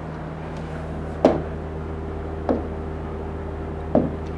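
Three short knocks, about one and a quarter seconds apart, of taps on a large touchscreen whiteboard while a pen tool is picked and drawing begins. A steady low hum runs underneath.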